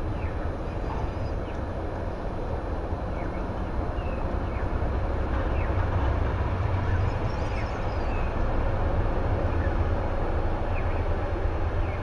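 A steady low rumble of outdoor background noise, with faint short chirps from small birds scattered through it.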